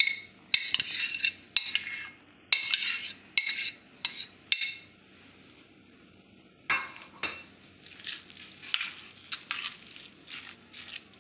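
A utensil scraping and clinking against a glass bowl in short bursts as a soft egg, mayonnaise and vegetable filling is added and stirred. There is a quiet pause of about two seconds midway.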